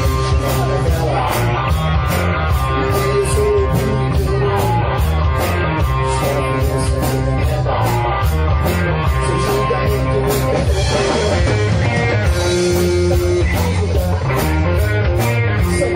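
A live rock trio playing: electric guitar, electric bass and drum kit, with a steady cymbal beat over a sustained bass line.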